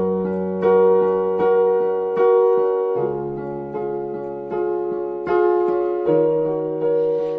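Piano playing a slow instrumental passage of sustained chords, struck about once a second, with the chord changing every three seconds or so.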